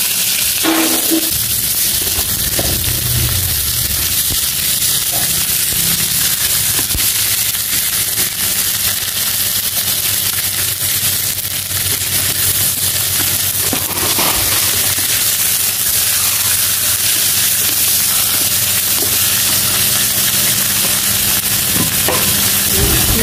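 Fish steaks frying in hot oil in a nonstick pan: a steady sizzle.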